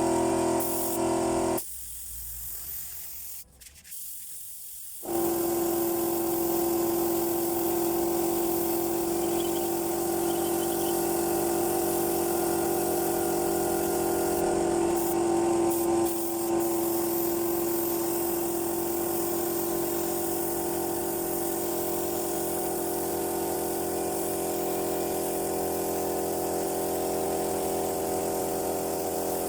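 Spray painting: a paint spray gun hissing over the steady hum of a running motor. The sound drops away about two seconds in and comes back steady about five seconds in.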